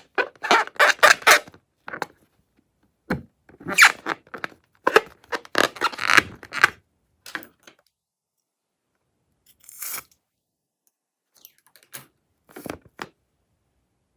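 Crackling, crunching handling sounds of slime-making in irregular bursts, dense for the first several seconds, then a few scattered ones near the end.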